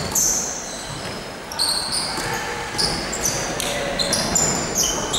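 Basketball game sounds: sneakers squeaking on the court in many short, high chirps, with a ball bouncing.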